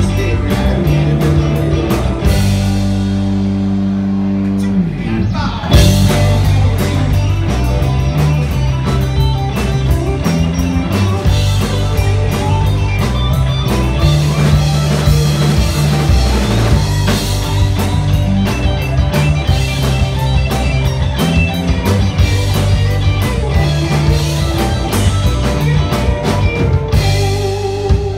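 Live blues-rock band playing: electric guitars over a drum kit. Two seconds in, the band holds a chord with the cymbals out, then a long downward slide brings the full band crashing back in at about six seconds; near the end the drums drop away and chords ring.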